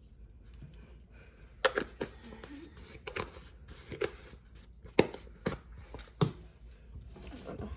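Kitchen handling sounds while shrimp are being seasoned: a string of sharp knocks and clicks, about eight at uneven spacing beginning a second and a half in, with light rustling between them.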